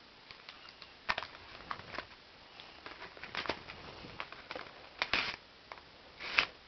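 A handmade paper model rifle being handled: scattered rustles, taps and small clicks of paper under the fingers, with louder rustles about five seconds in and again near the end.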